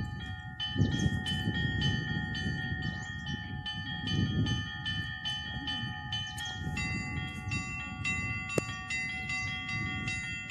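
Russian Orthodox chapel bells rung by hand in a quick, even run of strokes, about two to three a second, their tones ringing on over one another; a higher set of bells joins about seven seconds in. A low rumble runs underneath.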